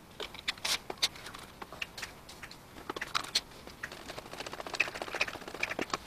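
Coffee poured from a vacuum flask into a small cup, then a teaspoon stirring in the cup with a run of small irregular clicks and taps.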